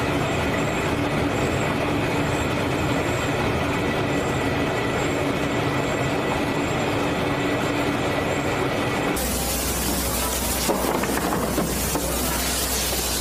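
Steady machinery hum with a faint high chirp repeating under it, then about nine seconds in an abrupt change to a loud rushing hiss of water churning in a produce washing tank.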